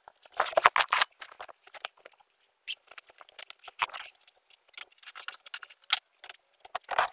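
Clothes and small objects being handled and moved while tidying a room: a string of short rustles, clicks and light knocks with brief gaps between them, busiest in the first second.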